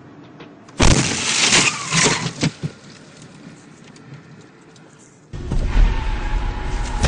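A road collision heard from inside the filming car: a sudden loud crash with a cluster of sharp impacts and rattling that lasts about two seconds, as the car is struck and the phone filming it is thrown about. About five seconds in, the sound cuts abruptly to a louder steady low rumble with a couple of held tones.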